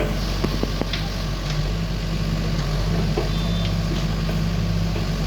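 Excavator's diesel engine running steadily, with a few sharp clanks in the first second and a half.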